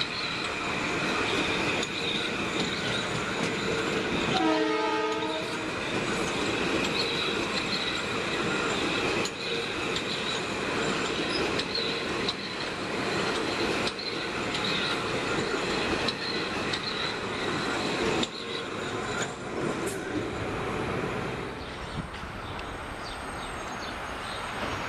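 Metro-North electric commuter train passing at close range: steady rush and rumble of wheels on rail with a steady high whine. A short horn blast sounds about four seconds in, and the noise eases near the end as the last car goes by.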